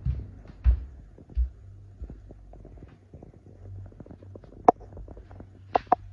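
Three dull low thuds in the first second and a half, then faint scattered clicking and three sharp taps near the end.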